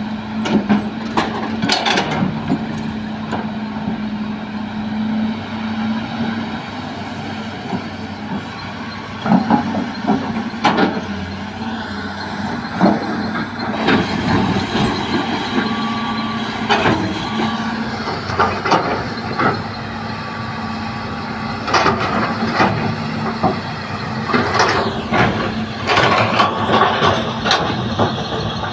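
Hitachi hydraulic excavator running steadily while loading soil into a dump truck, with repeated sharp clunks and knocks scattered through, clustered near the end, and a rising whine near the middle.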